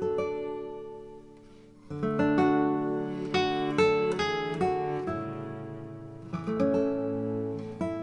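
Background music on acoustic guitar, plucked notes and strummed chords. A chord fades out, then a new phrase of picked notes begins about two seconds in.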